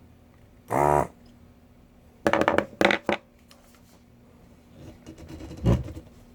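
Hakko FR-300 desoldering gun's vacuum pump buzzing in short bursts: one brief burst a little under a second in, three quick ones between about two and three seconds, and a longer one that swells near the end, as it sucks molten solder out of connector pin holes.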